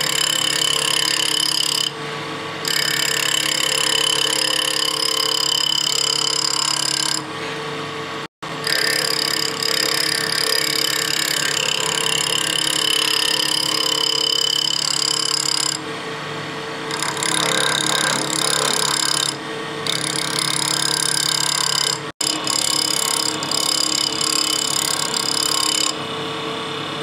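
Wood lathe running while a gouge cuts a letter-opener blank turned on an off-centre axis. The tool strikes only the high side of each turn, giving a hissing, ringing cut over the lathe's steady hum. The cutting noise stops and restarts several times as the tool is lifted from the wood.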